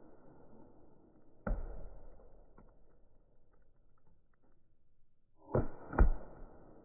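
Shots from a tuned, HPA-powered Valken M17 magfed paintball marker firing 9.9 g riot balls at a watermelon. One sharp shot comes about a second and a half in, then two close together near the end, the second one louder.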